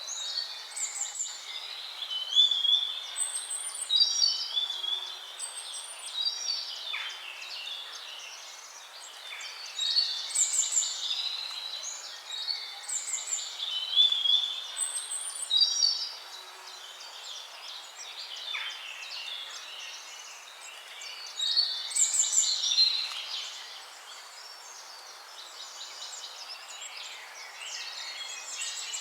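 Several songbirds singing and chirping in bunches of quick warbles, over a steady background hiss.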